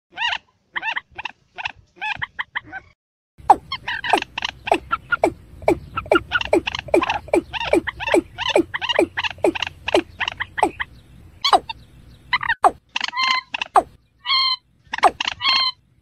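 Watercock (ayam-ayaman) calling: a fast series of short notes, several a second, each sliding down in pitch. There is a brief pause about three seconds in, and a few longer, level notes near the end.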